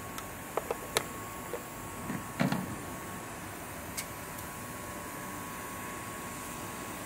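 A few light plastic clicks and a short knocking rub as the oil filler cap is taken off and the dipstick handled, over a steady hum.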